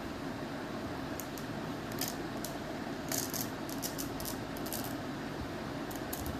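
Light, sharp clicks and small rattles in scattered clusters over a steady hiss, as a baby handles a toddler's sneaker.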